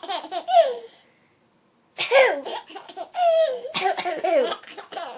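A 10-month-old baby laughing hard at his mother's coughing. One high-pitched laugh trails off about a second in, and after a short pause a longer bout of laughter starts about two seconds in.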